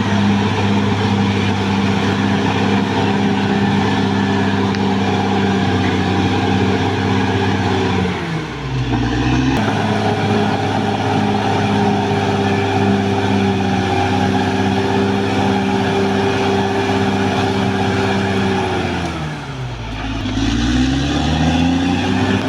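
Caterpillar D6R XL bulldozer's diesel engine running steadily at high revs. Twice, about eight seconds in and near the end, the engine speed sags and then climbs back.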